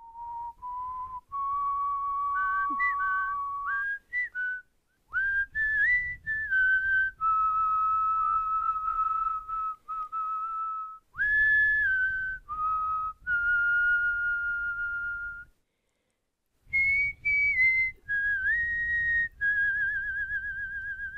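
A person whistling a tune: one clear melodic line of held notes stepping up and down, broken by a few short pauses, with a warbling note near the end.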